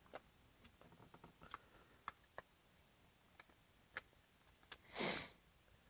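Faint, scattered clicks and taps as the partly reassembled Milwaukee impact driver's housing and gear case are handled. There is a short rush of noise about five seconds in.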